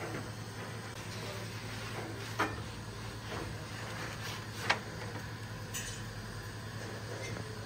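Steady rushing of a stone bread oven's gas burner flame over a constant low hum, with two sharp clacks about two and a half and nearly five seconds in.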